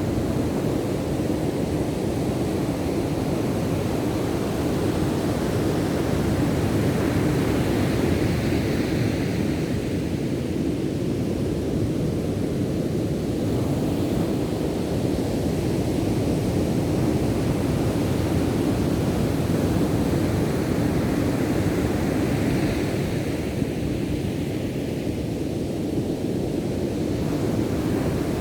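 Ocean surf: a steady low rumble of waves, with two waves washing in as a brighter hiss, about eight and twenty-two seconds in.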